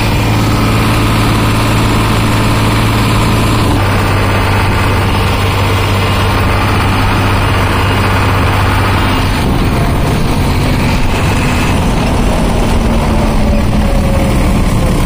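Tractor's diesel engine running steadily and loudly, its note changing about four seconds in and again near ten seconds in.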